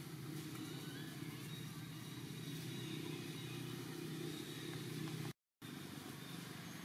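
Steady low engine hum of a motor vehicle running, with a faint hiss above it; the sound cuts out for a moment about five seconds in.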